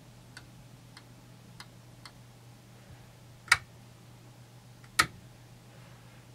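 A few light clicks, then two sharper clicks about a second and a half apart, as 12-volt test leads are touched to the terminals of an old EVAP purge solenoid. The solenoid gives no click of its own: it fails to actuate and is faulty. A faint steady low hum runs underneath.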